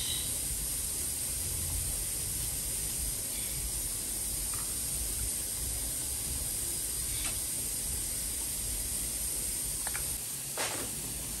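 Steady hiss, with a couple of faint soft knocks near the end from hands handling cheese-stuffed squash blossoms on a glass plate.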